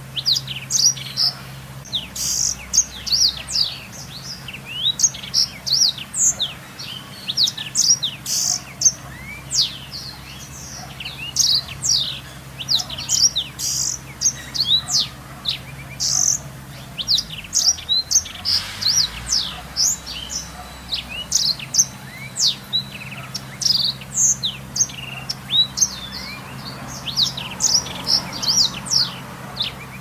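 Black-throated canary (blackthroat) singing a long, fast song of high, quick chirps and trills that keeps going with only brief pauses.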